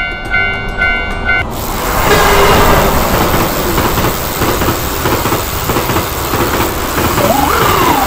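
Japanese railroad crossing alarm ringing about twice a second, cut off about a second and a half in by the loud rushing rumble of a train passing. A short rising-then-falling tone sounds near the end.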